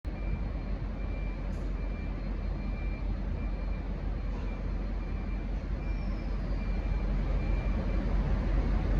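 Diesel locomotive idling with a steady low rumble that grows slightly louder toward the end. A faint high beep repeats a little more than once a second through most of it.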